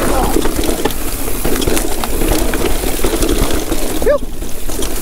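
Electric mountain bike riding down a dirt trail: a steady rush of wind on the microphone and tyres rolling over dirt, with scattered clicks and rattles from the bike. About four seconds in the rush briefly drops and a short pitched sound rises and falls.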